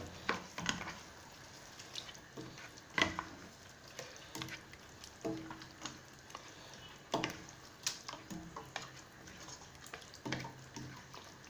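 A ladle stirring chicken in a thick tomato masala in a stainless-steel pot, scraping and knocking against the metal now and then, over a faint sizzle.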